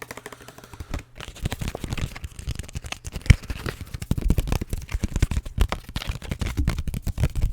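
Rapid fingertip tapping and crinkling on Pokémon card packs and wrappers close to the microphone: dozens of quick, sharp taps that start about a second in and grow denser and louder.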